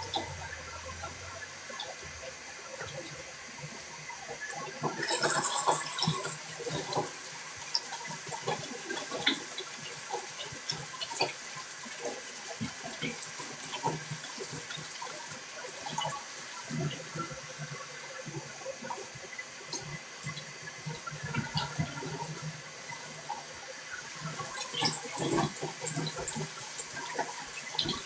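Water running and splashing, with scattered knocks and clatter, and two louder surges of water, one about five seconds in and another near the end.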